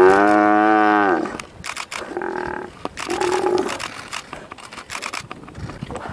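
Cape buffalo bellowing in distress under attack by lions: one long, loud bellow that drops in pitch at its end, then two shorter calls about a second apart. Scuffling and knocks follow in the second half.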